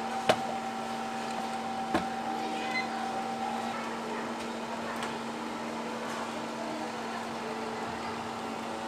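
Sharp metal clack about a third of a second in and a lighter knock at about two seconds from an egg-waffle iron that has just been clamped shut and turned, over a steady electrical hum from the stall's equipment.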